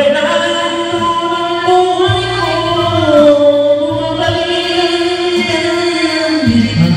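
Karaoke singing: a singer holds long, drawn-out notes into a microphone over the karaoke machine's backing track.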